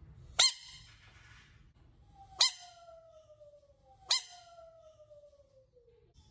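A large frog giving three short, loud distress screams about two seconds apart, the defensive cry of a frog that has been prodded.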